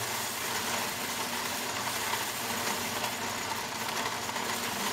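Drill press running at slow speed with a flat file held against a spinning 1/4-20 machine screw, steadily rasping off part of its threads to make a narrow shank.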